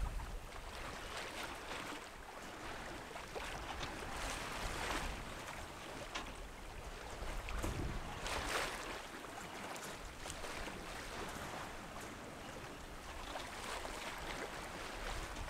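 Sea water rushing and splashing along a sailboat's hull under way, in irregular surges, the loudest a little past halfway.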